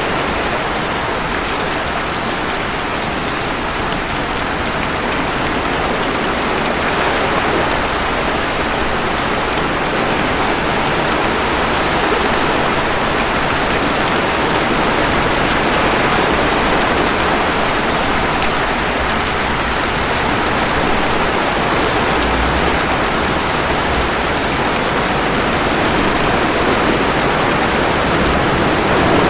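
Steady rain mixed with ocean waves washing ashore: a dense, even hiss that swells and eases slowly.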